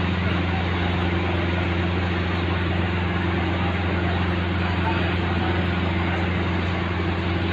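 Steady low engine drone of a parked fire engine running at constant speed, over the noise of a busy street.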